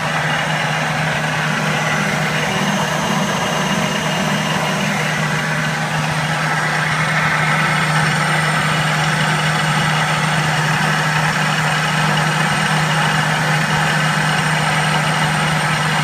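Central Machinery 12x36 metal lathe run at high speed by a VFD: motor and headstock gears whining steadily over a low hum, a little louder about halfway through.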